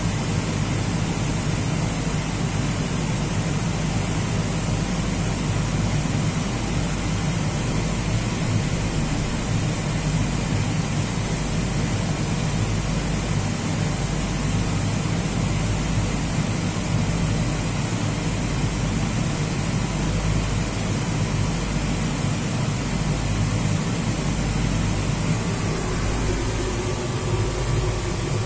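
Steady hum and rushing air noise inside an enclosed Ferris wheel gondola, mostly low-pitched, with no distinct events.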